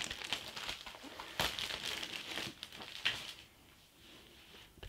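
Crinkling and rustling of a magazine being handled, with sharp crackles, dying away about three and a half seconds in.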